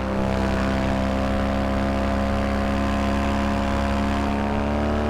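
Vittorazi Moster 185 single-cylinder two-stroke paramotor engine and propeller running steadily in flight, heard from the pilot's seat, its pitch dipping slightly near the end.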